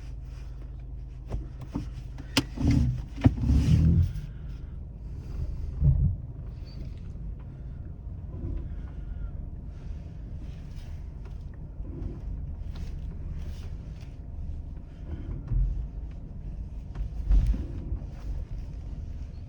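Dacia Duster's 1.3 TCe turbocharged four-cylinder petrol engine running steadily at low revs as the 4x4 drives off-road, with scattered thumps and knocks from the car, the loudest cluster between about two and four seconds in.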